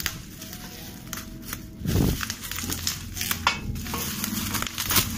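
Plastic bubble wrap crinkling and crackling as it is pulled and crumpled off a metal part, with a low thud about two seconds in. Faint background music runs underneath.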